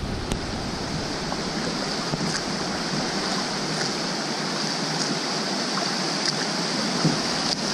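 River water rushing over a riffle, a steady rush with a few faint ticks scattered through it.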